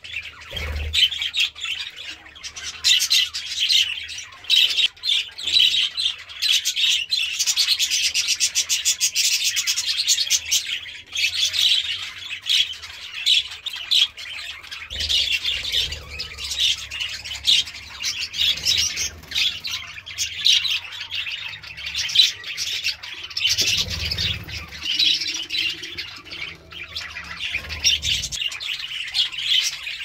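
A flock of budgerigars chattering and squawking continuously, many birds calling over one another in a dense, unbroken chirping.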